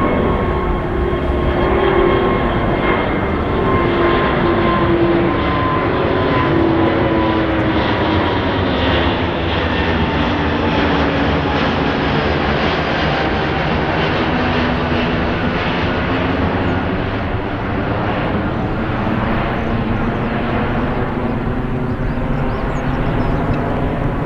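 Jet airliner's engines passing close by: a loud, steady rush with a whine that slowly falls in pitch.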